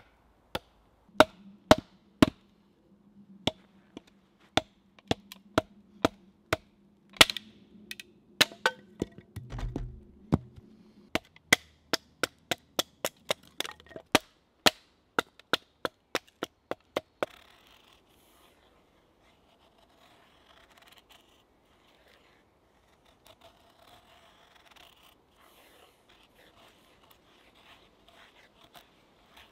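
A wooden baton striking the spine of a knife to split a wooden stake: a long series of sharp wooden knocks, coming faster after about ten seconds. The knocks stop around seventeen seconds in, and a knife blade scraping thin curls off a stick to make a feather stick follows, a soft, steady shaving sound.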